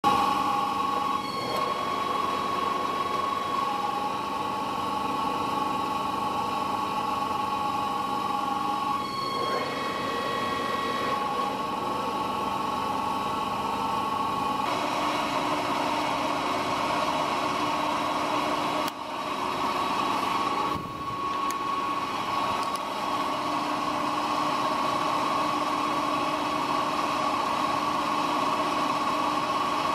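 WMW DLZ 630 centre lathe running, its headstock gears and spindle turning the three-jaw chuck with a steady whine of several tones. The tones change a few times, with two short dips in level about two-thirds of the way through.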